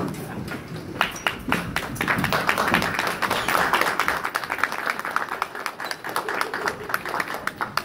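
Audience applauding: a few scattered claps at first, swelling into full applause about two seconds in, then thinning out to separate claps near the end.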